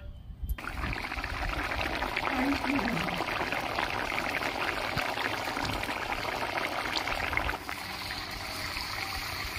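A pan of poppy-seed and spice gravy with water bubbling as it simmers on the stove. The steady bubbling starts suddenly about half a second in and drops a little in level near the end.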